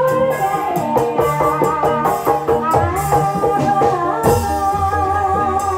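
Music for an ebeg dance: a Javanese gamelan-style melody of quick pitched notes over drums and rattling percussion, played without a break.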